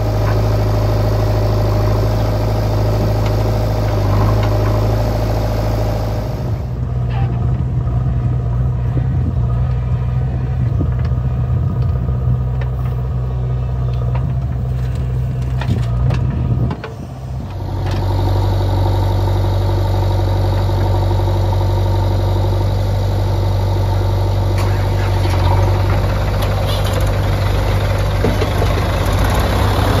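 Diesel engines of a JCB 3DX backhoe loader and farm tractors running steadily near idle, a deep even hum. The sound shifts abruptly about six and a half and seventeen and a half seconds in.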